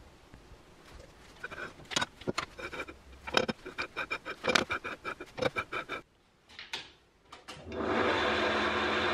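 A string of light metallic taps and clinks, several a second and each briefly ringing, as the metal tube is set and trued in a metal lathe's chuck. Near the end the lathe starts up and runs steadily.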